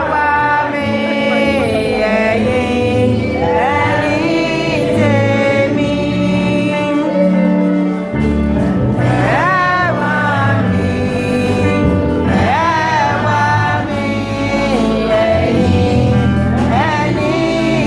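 Gospel music: several voices, men and women, singing together over a sustained low instrumental accompaniment.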